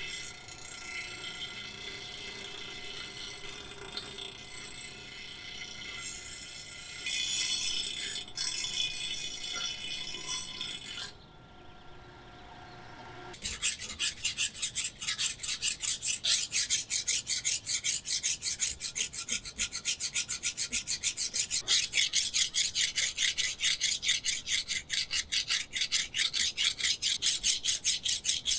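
Scraping and rubbing of a hand-held abrasive on the workpiece. About halfway through, after a brief quieter gap, it settles into even back-and-forth strokes at about three a second.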